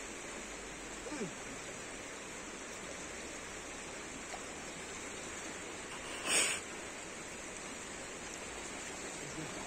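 River water flowing steadily over a rocky bank as an even rushing hiss. There is a short, louder burst of noise about six seconds in.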